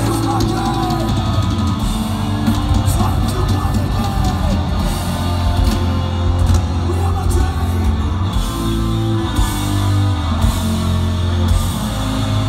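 Black metal band playing live through a festival PA, heard from within the crowd: distorted electric guitars, heavy drums and cymbals, and vocals in a dense, steady wall of sound.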